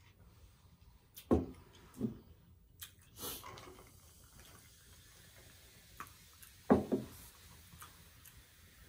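Close-miked drinking sounds: two loud swallowing gulps about a second apart after a sip through a straw, then soda poured from a glass bottle into a glass, and one more loud mouth sound later on.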